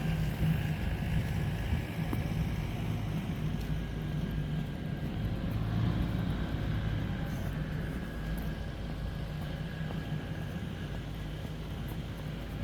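Street traffic: motor vehicles running with a steady low engine rumble and hum.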